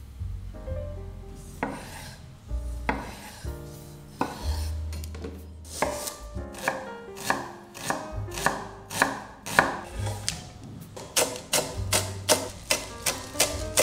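Chef's knife chopping on a wooden cutting board, dicing tomatoes and then finely chopping fresh herbs (dill, mint, cilantro). The strokes are sparse at first and come quicker and sharper in the second half. Soft background music plays underneath.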